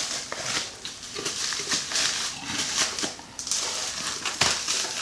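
Bubble-wrap and plastic packaging crinkling and rustling in irregular surges as it is handled and lifted out of a cardboard box.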